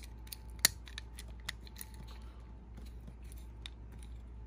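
Small sharp clicks and ticks from hands working a die-cast toy car and its small parts, with one loud click under a second in.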